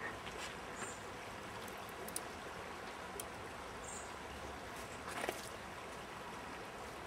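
Faint, steady outdoor background hiss of flowing water, with a few soft clicks.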